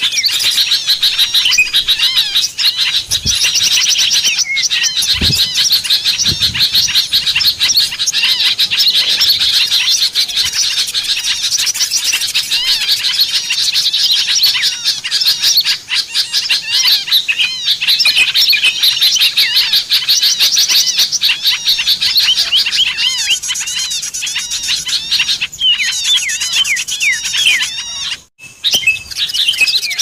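Bird-lure recording of many small songbirds, bulbuls and flycatchers among them, chirping and whistling densely over one another. The chorus briefly drops out near the end.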